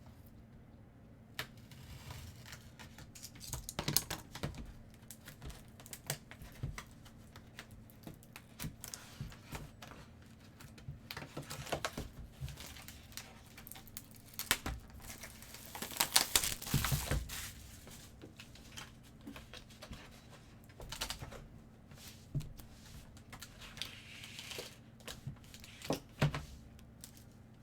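Hands opening a box of trading cards and handling the plastic and cardboard inside: scattered clicks and rustling, with a louder stretch of crinkling and tearing about sixteen seconds in.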